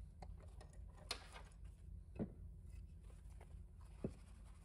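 Faint workbench handling sounds: a few light clicks and taps as the valve body is loosened in a small bench vise and lifted out, over a steady low hum.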